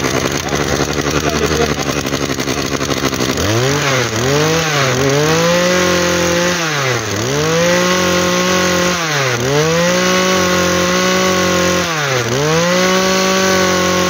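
Makita MEM2300U 23cc brush cutter engine running just after a pull start. From about three seconds in it is revved repeatedly, its pitch sagging and climbing back about five times, holding high and steady in between.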